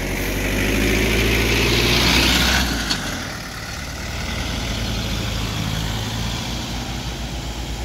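Small pickup truck's engine running close by, then settling to a steady low idle about three seconds in.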